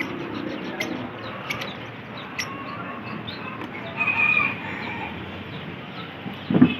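Caged birds at a bird market chirping and calling, with fowl among them. There is a louder drawn-out call about four seconds in, and a brief low thump near the end.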